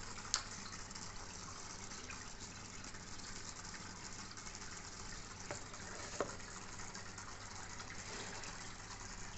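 Steady rush of water from an aquarium filter or air-driven outflow, over a low steady hum, with two short clicks, one about half a second in and one about six seconds in.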